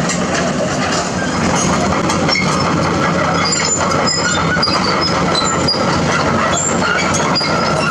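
Excavator working hard limestone: a steady diesel engine hum under a dense clatter of irregular knocks, with short high-pitched squeals of steel grinding on rock.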